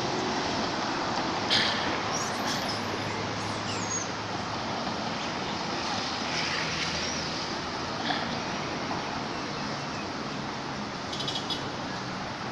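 Steady outdoor rushing noise, with a few brief high chirps and squeaks about one and a half to three and a half seconds in, and a quick rattling chirp near the end.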